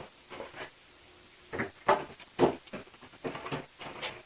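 Cardboard model-kit box being handled: a quick series of short knocks, taps and scrapes starting about a second and a half in.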